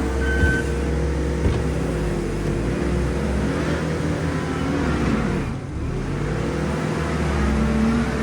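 Diesel engine of a New Holland C362 skid steer running steadily under work, its pitch rising and falling as it is throttled. A high beep sounds once at the start, and two short knocks come in the first two seconds.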